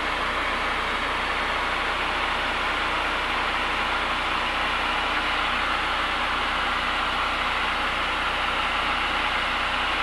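Cessna 172's engine and propeller drone steadily together with airflow noise, heard inside the cabin in flight.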